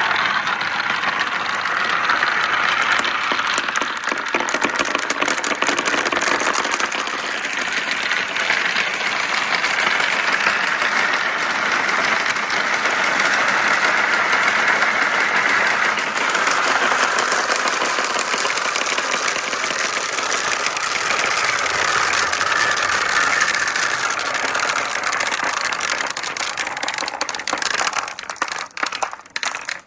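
Marbles rolling and clattering down a long marble-run track in a dense, continuous rattle that thins into scattered clicks and dies away near the end.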